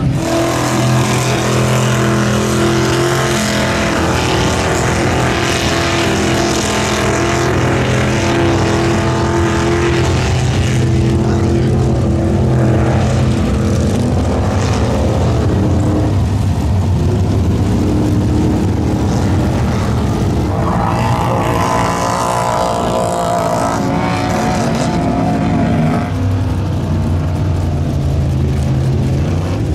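Engines of lifted 4x4 mud trucks running hard at high revs as they plow through a mud hole. The engine note holds steady, then steps down and back up in pitch several times.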